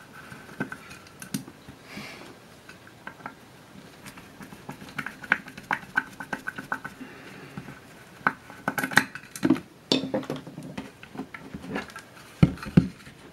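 Small metal clicks and clinks of screws and parts being handled on a die-cast metal antenna housing, with a few heavier knocks near the end as a section of the antenna is worked loose.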